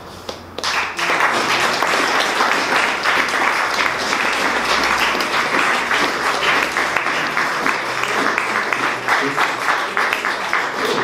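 Audience applauding, breaking out less than a second in and going on steadily as a dense clatter of many hands.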